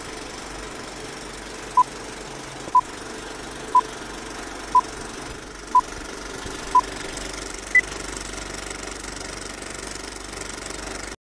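Old film-projector clatter running steadily as a countdown-leader sound effect. Six short beeps come one second apart, then a seventh, higher-pitched beep about eight seconds in. The clatter cuts off abruptly near the end.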